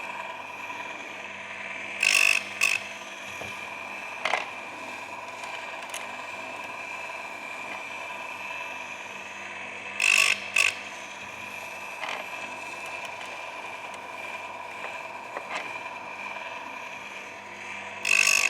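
Electric chainsaw-chain sharpener running with a steady whine, its grinding wheel brought down onto a chain tooth in a pair of short grinds about every eight seconds: near two seconds in, near ten, and again near the end.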